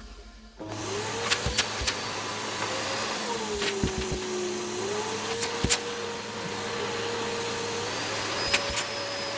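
Samsung VC-6015V vacuum cleaner, fitted with a new motor, switching on about half a second in and running with a steady whine. The pitch dips for about a second around four seconds in and then comes back up, and a few sharp clicks sound over it.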